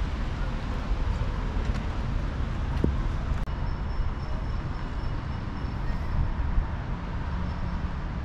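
Steady outdoor city background noise: a low rumble with a faint hiss, like distant traffic, with no single sound standing out.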